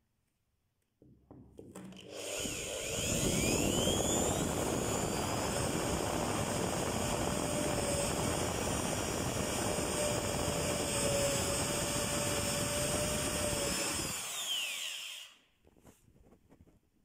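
Electric drill with a wood bit boring a hole through parquet flooring, opening access to the void beneath the creaking boards. The motor spins up about two seconds in, runs steadily under load for about twelve seconds, then winds down.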